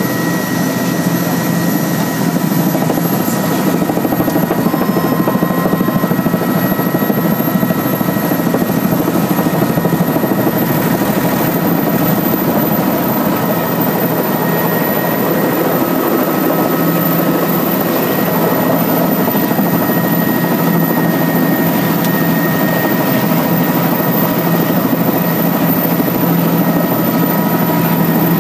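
Helicopter's turbine engine and rotor running steadily and loudly, heard from inside the cabin, with a faint high whine over the noise, as it comes in to a helipad.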